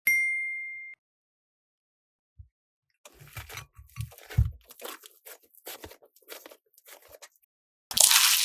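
A short ringing ding at the start, then a few seconds of irregular crackly crunching with some soft low thumps, like crunchy slime being squeezed and pressed. Near the end comes a loud, short rush of noise.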